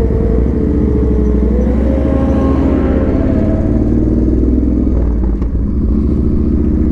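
Yamaha Bolt's air-cooled 942 cc V-twin running while the bike is ridden. The engine note rises a little about two seconds in, then holds steady.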